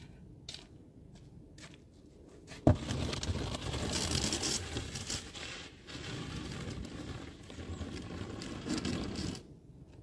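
Snow shovel scraping along the pavement as it pushes snow, starting with a sharp knock as the blade comes down about three seconds in. The scraping runs for several seconds with a brief break in the middle and stops shortly before the end.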